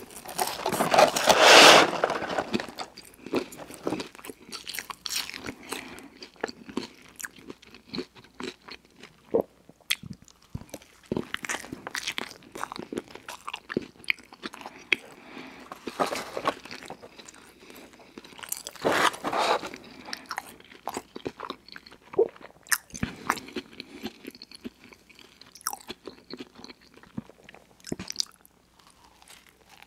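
Close-miked chewing and biting of McDonald's fast food (a Big Mac and French fries): soft crunches and wet mouth clicks following one another unevenly. A louder burst of rustling comes in the first two seconds, and another louder stretch of chewing comes about two-thirds of the way through.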